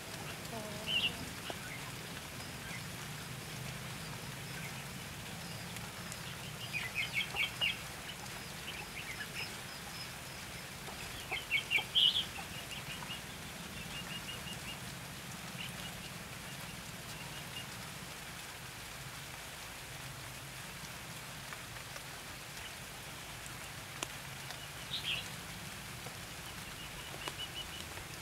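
Red-whiskered bulbuls calling in short groups of chirpy notes several times, loudest around seven and twelve seconds in, over a steady hiss of rain.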